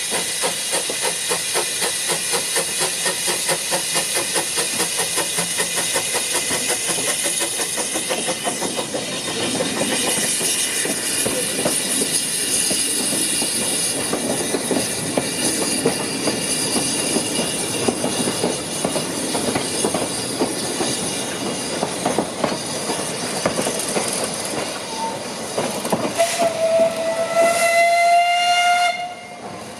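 Small narrow-gauge steam locomotive working, with a steady hiss of steam and a quick regular beat. Near the end a steam whistle sounds once for about two and a half seconds, rising slightly in pitch.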